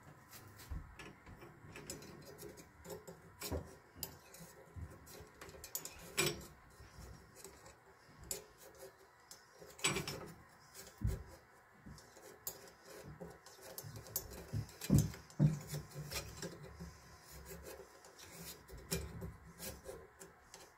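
Small screwdriver scraping and picking at sediment and scale packed inside the open end of a copper hot-water pipe: irregular scratching with scattered sharp clicks of metal on metal. The debris is the clog that choked the hot water flow.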